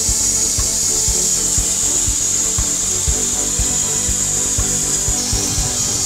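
Background music with a steady beat, about two beats a second, over the steady sound of a Wood-Mizer LT40 band sawmill's blade cutting through a log.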